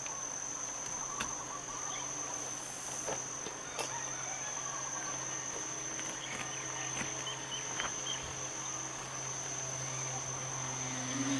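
Steady high-pitched insect chirring over a low, steady hum, with a few faint ticks and rustles as adhesive flashing tape is pressed onto plywood sheathing.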